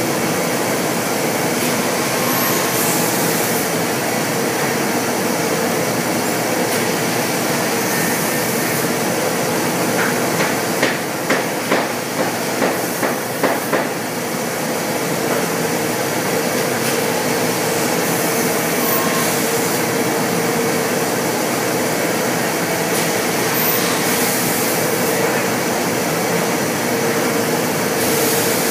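Pade CNC machining center running while it machines wooden chair components: steady machine noise with a held mid-pitched tone. Partway through comes a quick run of about six sharp, loud knocks.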